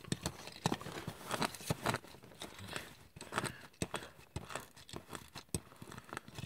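Faint, irregular clicks and taps of a small plastic pull-back toy jet being handled and pushed against a cloth surface.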